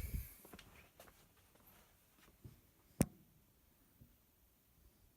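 Clicks and knocks from handling a CRT television's housing: a loud knock at the start, a few faint clicks, then one sharp knock about three seconds in.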